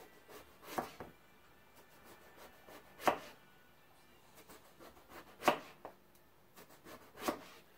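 Kitchen knife slicing through a partly peeled eggplant into rounds, each cut ending in a sharp knock on a plastic cutting board. Four main knocks about two seconds apart, with lighter taps between.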